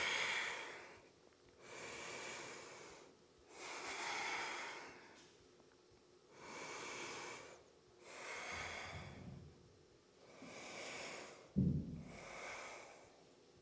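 A woman breathing slowly and deeply, long, even breaths in and out, about seven in all, while holding a yoga stretch.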